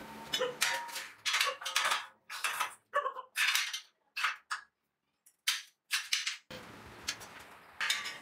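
A series of sharp metal clanks and knocks, irregular at about two a second, some with a short ring, broken by a stretch of dead silence in the middle.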